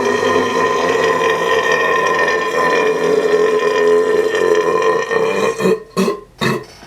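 A man's long, drawn-out burp held at a steady pitch for about five seconds, followed by a few short bursts near the end.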